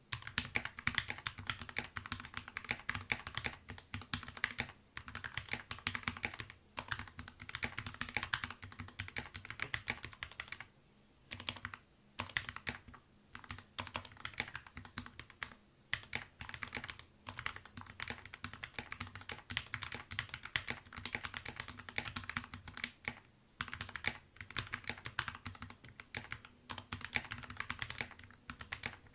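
Fast continuous typing on a GK61XS 60% mechanical keyboard with lubed Gateron Yellow linear switches: a dense run of key clacks with short pauses between bursts.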